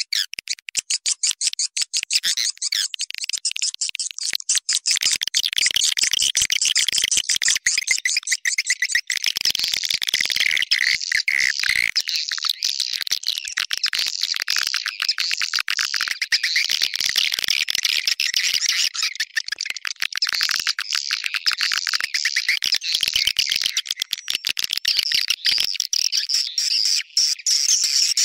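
Swiftlet call-lure sound: a dense, unbroken chatter of rapid high-pitched swiftlet chirps and twitters, a little sparser in the first few seconds. It is the kind of recording played from swiftlet houses to draw swiftlets in.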